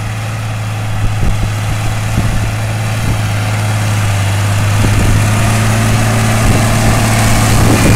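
John Deere 3140 tractor's six-cylinder diesel engine working under load while pulling a four-furrow plough: a steady low drone that grows louder as the tractor draws nearer, with a few short knocks.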